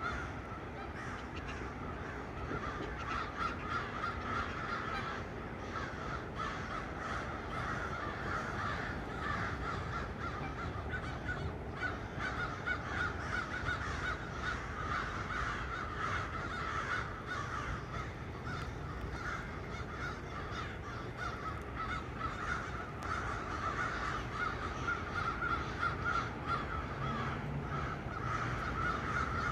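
A flock of crows cawing from the trees, many birds at once, so the caws overlap into an unbroken chorus.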